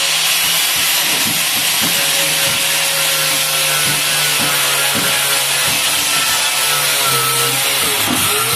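A power grinder running steadily under load on exhaust metal, a loud rasping hiss with a wavering whine.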